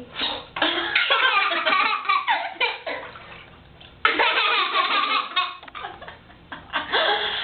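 A baby laughing hard in repeated bursts of belly laughter, with a short pause about halfway through.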